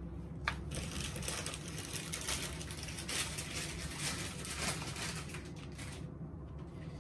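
Plastic crinkling and rustling with many small clicks as small plastic toy pieces and packaging are handled, starting with a sharp click about half a second in and dying down near the end.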